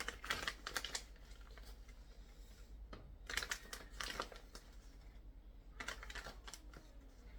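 Light clicks and rustling from handling spice containers, in a few short clusters.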